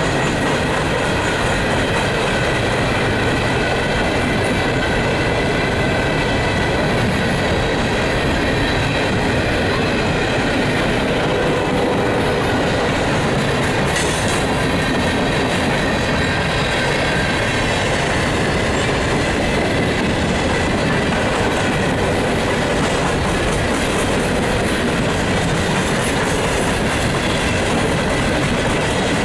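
Norfolk Southern hopper freight train rolling past at steady speed: a continuous clatter of wheels over the rails, with a faint high wheel squeal running through it.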